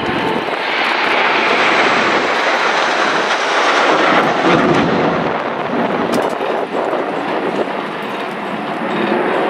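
Aircraft flying past: an even engine noise without a clear pitch swells about half a second in, is loudest for the next few seconds, and eases after about seven seconds before building again near the end.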